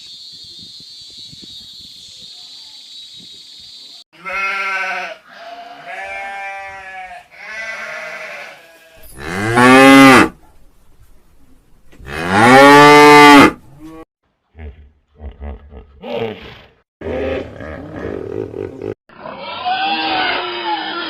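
Cattle mooing: a few shorter calls, then two long, loud moos that fall in pitch midway. These are followed by choppy low grunting pulses and, near the end, a noisier, different animal sound.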